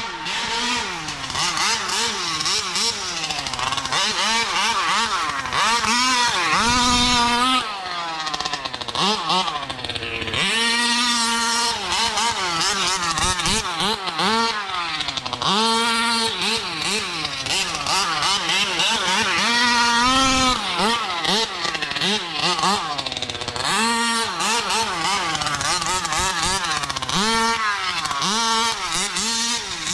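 Taylor 50cc two-stroke engine of a 1/5-scale Kraken Vekkta RC buggy revving up and down again and again as it is driven around a dirt track. The pitch climbs and drops every second or two, with short stretches held at high revs.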